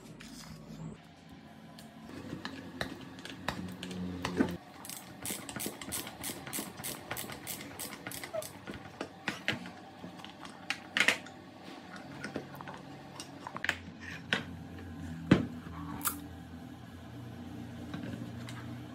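Workshop hand-work sounds: scattered clicks and taps, with a run of quick even ticks about three a second in the middle and one sharp click as the loudest sound about two thirds of the way in, over a low steady hum.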